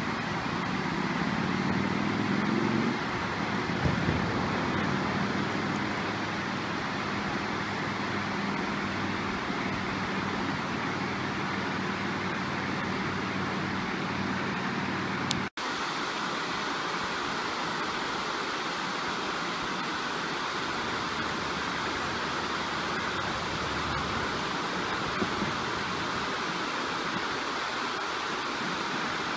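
Water rushing steadily over a low dam's spillway into whitewater below. A low steady hum sits under the first half, and the sound cuts out for an instant about halfway through.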